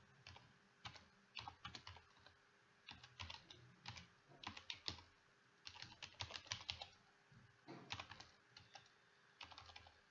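Faint computer keyboard typing: quick runs of keystrokes broken by short pauses.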